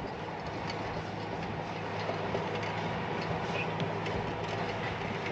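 Heavy earthmoving equipment clearing the riverbed: a diesel engine running steadily, with a few light clanks over an even rushing noise.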